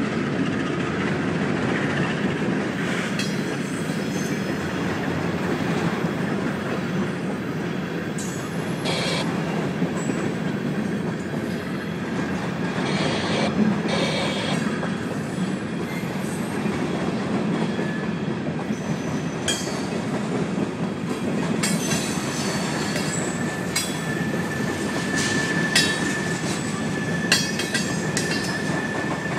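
Freight cars of a mixed freight train rolling past over a grade crossing: a steady rumble of wheels on rail with scattered clanks and clicks. From about three-quarters of the way through, a thin, steady, high squeal from the wheels joins in.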